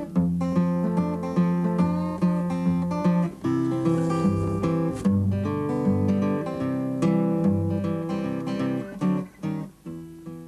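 Background music: a plucked guitar tune in a steady rhythm, thinning out and fading near the end.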